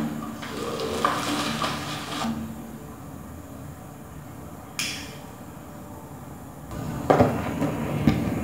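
Light clatter and rustling of a cake plate being handled and set on a plastic chair, with a sharp click about five seconds in and a few knocks near the end.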